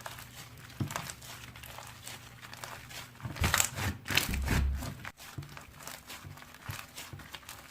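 Slime being squished and pressed by hand: a run of small crackles and clicks, louder for about two seconds in the middle.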